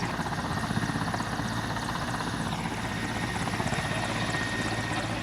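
Helicopter running: a steady rotor and turbine noise with a fast, even beat from the blades.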